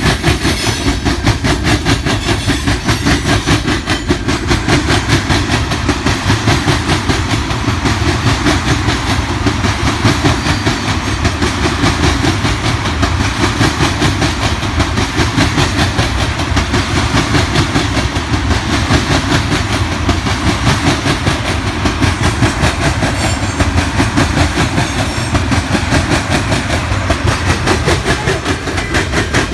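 Freight train cars, gondolas and tank cars, rolling past close by: loud, steady, rapid clatter of steel wheels on the rails.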